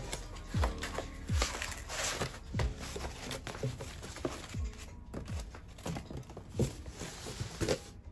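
Background lo-fi music with a low beat, over faint rustling of foam packing sheets being lifted out of a cardboard box.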